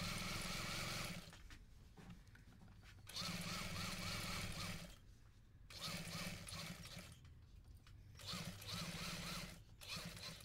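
Sewing machine running in short spurts, about four runs of one to two seconds with pauses between, as it stitches slowly along the edge of a collar band.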